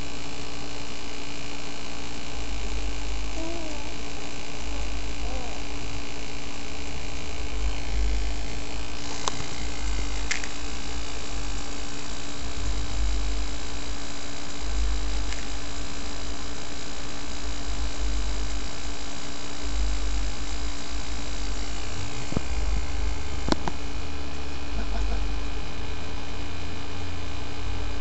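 A steady electrical-sounding hum with an uneven low rumble beneath it, broken by a few faint clicks.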